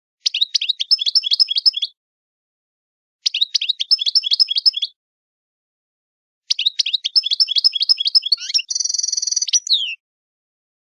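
A songbird singing in three phrases of rapid repeated chirps, with silent gaps between them; the last phrase ends in a buzzy trill and a falling note.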